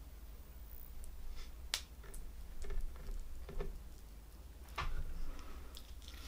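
Boiled prawn shells crackling and snapping as they are peeled apart by hand: scattered small crackles with a few sharp clicks, the loudest near two seconds in and again near five seconds in.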